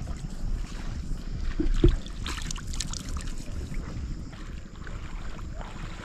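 Wind rumbling on the microphone, with a sharp knock just under two seconds in and a few brief noisy sounds after it.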